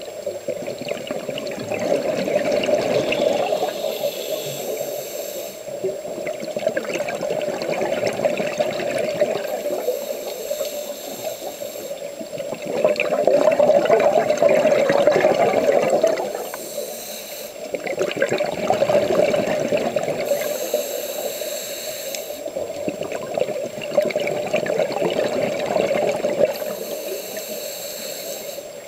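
Scuba diver breathing through a regulator, heard through a camera's underwater housing: a high hiss on each breath in, then a rush of exhaled bubbles, in a cycle of about five seconds.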